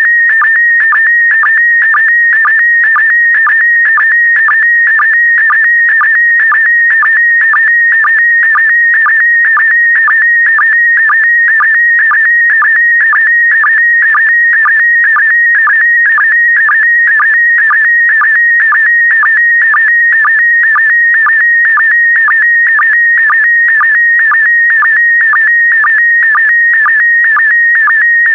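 PD120 slow-scan television (SSTV) signal: a loud, steady high tone near 2 kHz broken by short dips about twice a second. The dips are the line-sync pulses, and the tones between them carry the picture line by line.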